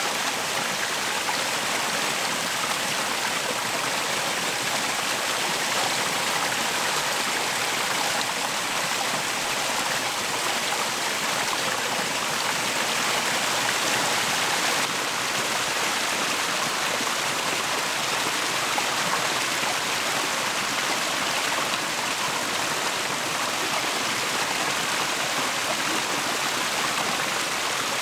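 Yoro Falls, a waterfall, pouring steadily: a constant, even rush of falling water splashing into its pool.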